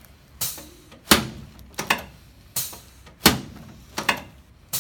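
A regular series of sharp knocks or thuds, evenly spaced at about three every two seconds, each dying away quickly.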